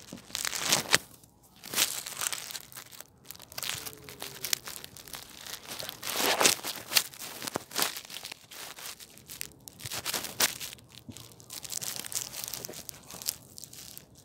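Irregular rustling and crackling handling noise as the phone is picked up and moved about in the grass, with fingers and grass rubbing close against its microphone.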